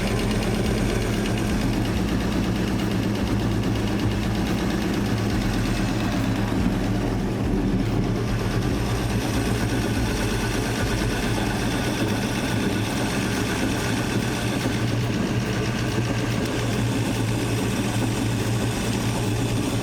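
Chevrolet 454 big-block V8 boat engine idling steadily just after starting, still untuned.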